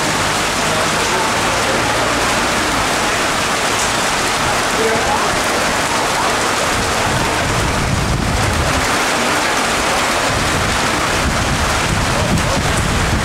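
Heavy tropical rain from a hurricane's rain band pouring down steadily, a dense even hiss of rain hitting surfaces. A low rumble swells for a few seconds midway.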